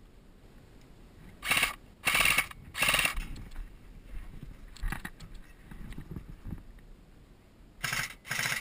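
Airsoft electric gun firing short full-auto bursts, each a rapid rattle of shots: three bursts about a second and a half in, then two more near the end.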